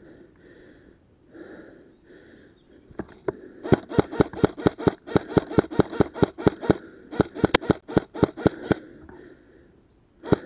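Airsoft rifle firing a rapid string of shots, about six a second, in three runs with short breaks between about four and nine seconds in, then two more shots at the very end. Before the shots, the player's breathing is heard close to the microphone.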